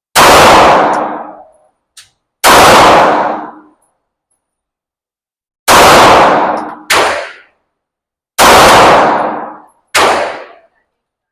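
Six 9mm pistol shots from a Glock 45, fired at an uneven pace with the last four coming in two quick pairs, each shot followed by about a second of echo in an enclosed indoor range. A faint metallic tink comes about two seconds in.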